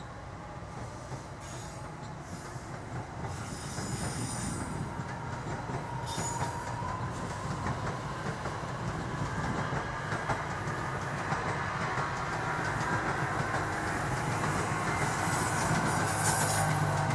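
NJ Transit Arrow III electric multiple-unit train rolling past: a steady wheel-on-rail rumble with bursts of high-pitched wheel squeal. It grows louder as the cars come nearer and is loudest near the end.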